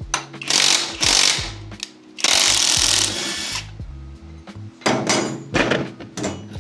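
Handheld power tool, such as a cordless impact wrench or drill, run in four bursts, the longest lasting about a second and a half in the middle.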